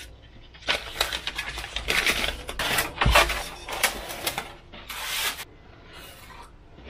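Sheets of 6 mm Depron foam and paper templates being handled and slid about on a wooden tabletop: irregular rustling and scraping, with a dull thump about three seconds in, settling down near the end.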